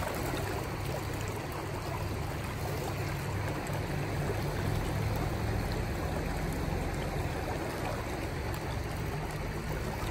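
Steady rush of river water flowing over a rocky bed.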